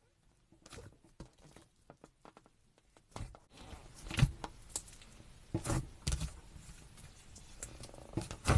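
Slime being handled: small sticky clicks and pops, then from about three seconds in, denser squishing with several louder squishes.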